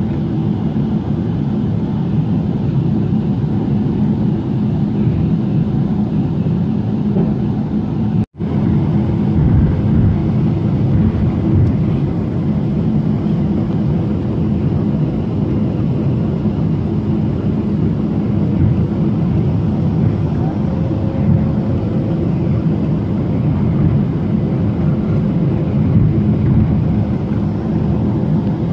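Steady jet-engine and airflow noise heard inside the cabin of an Emirates Boeing 777 in flight, low and even with a faint hum. There is a split-second break about eight seconds in where two recordings are joined.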